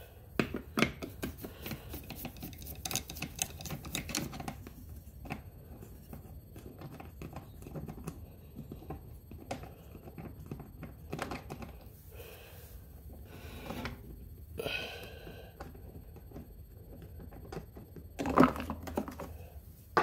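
Hand ratchet clicking in quick runs as the airbox fastener on a Honda EU2000i generator is loosened, then scattered clicks and knocks of plastic parts as the airbox cover is worked free, with a louder clatter near the end.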